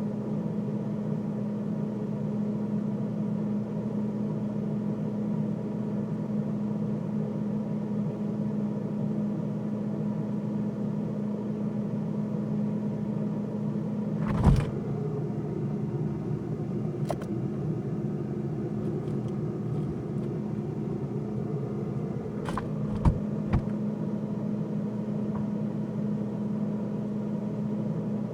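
Freezer running with a steady low hum, heard from inside the freezer. A sharp knock about halfway through, then a few fainter clicks and a pair of knocks later on.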